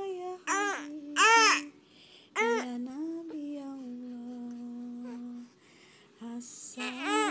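An infant crying in four short, arching wails while a woman hums a low, steady tune to soothe it. The baby has been startled awake from sleep.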